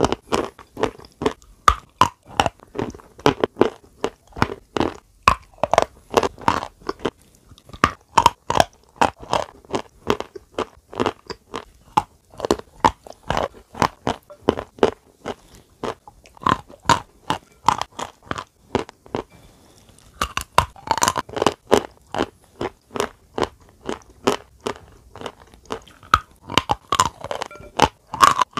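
Close-miked biting and chewing of a crunchy food: sharp crunches come a few a second, with a few brief pauses between mouthfuls.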